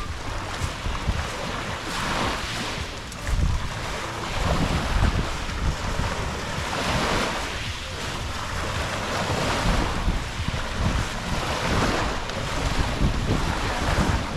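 Sea waves washing onto the beach, surging every two or three seconds, with wind buffeting the microphone.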